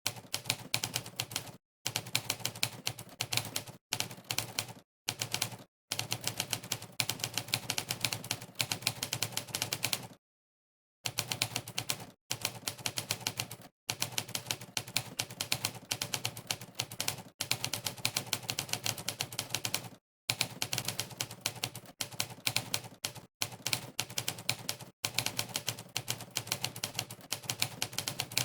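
Monkeytype's simulated typewriter key sounds: a rapid run of clacks, one per key press, broken by short silent pauses, the longest about ten seconds in.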